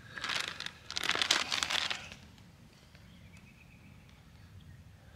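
Crinkly plastic snack packet being torn open and crumpled by hand for about two seconds, then going quiet.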